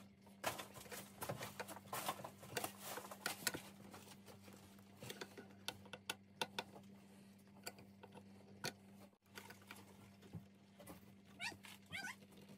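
A dog whimpering and whining in short cries, clearest near the end, over light clicks and scrapes of a screwdriver and a plastic handle being fitted to a chest freezer lid.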